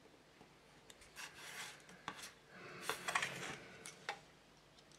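Several short scraping, rubbing strokes, the loudest about three seconds in, from a steel ruler and hobby knife working strips of masking tape on a plastic cutting mat.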